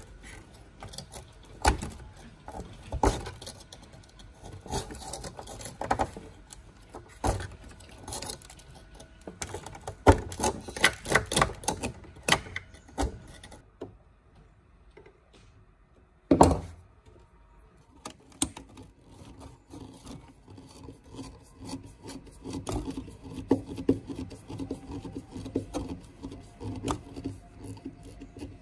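Hand work on an old TV set: irregular knocks, clicks, rubbing and scraping, with one loud knock about sixteen seconds in after a short lull. In the later part a steady low hum runs under the rubbing.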